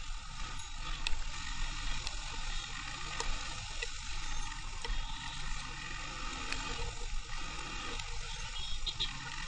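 Ride noise from a camera on a motorcycle moving through rain: a steady rush of wind and wet-road hiss over a low rumble, with a few sharp ticks.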